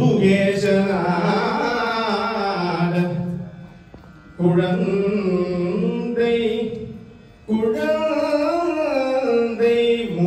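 A man singing a Carnatic devotional song in Tamil, solo, in long gliding melodic phrases. He breaks off twice for a breath.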